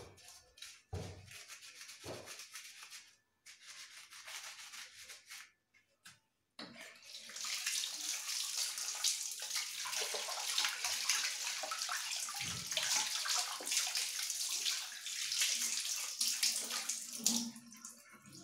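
A scrubber rubbing over a copper-and-brass lamp, then from about six and a half seconds in a kitchen tap running, its water splashing over the lamp as it is rinsed.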